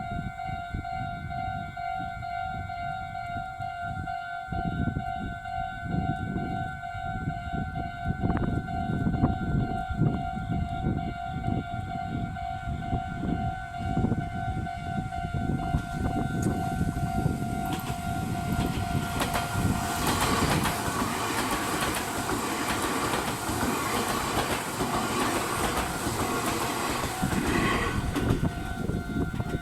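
Level-crossing alarm ringing with a steady, evenly repeating tone. About two-thirds of the way in, a Meitetsu 1200 series electric train comes through the crossing: a loud, dense rush with wheels clattering over the rails that lasts almost to the end.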